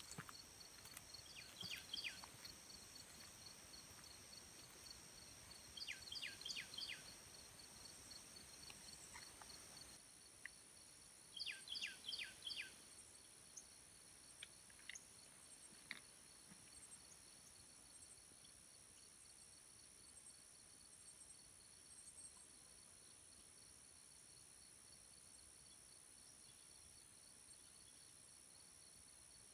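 Faint dawn chorus of insects trilling steadily at several high pitches. A bird sings a short phrase of four or five quick falling whistles three times in the first half, with a few single notes after.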